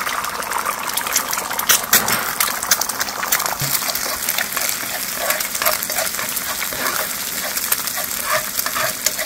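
Eggs frying in hot ghee in a frying pan, sizzling with many sharp pops ("snap, crackle, and pop"). About halfway through, a metal spoon starts scraping the pan in short repeated strokes as the eggs are stirred and scrambled.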